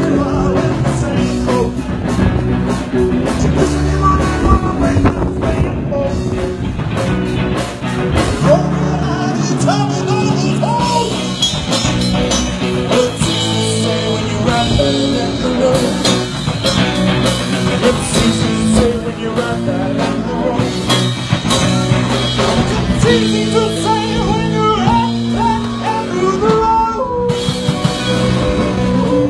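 Rock music with singing, playing continuously.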